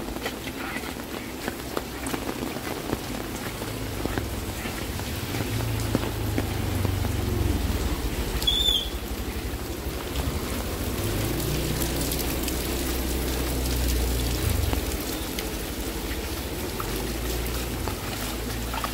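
Steady rain falling on wet pavement, with a low rumble that swells and fades at times and one short high chirp a little before the middle.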